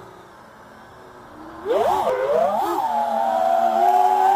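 FPV quadcopter's brushless motors spinning Gemfan 51466 props on a 5S battery, heard from the onboard camera. The motors hum at low throttle for about a second and a half, then the throttle is punched: the whine jumps in loudness, swoops up and down in pitch twice, and settles into a steady high whine that climbs slightly near the end.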